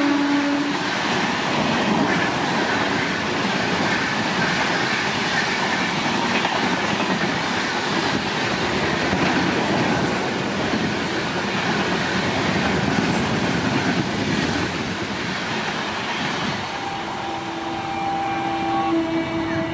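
A passenger train passes at speed, with a steady rush and clatter of coaches on the rails. A train horn fades out just after the start, and another sounds about three seconds before the end.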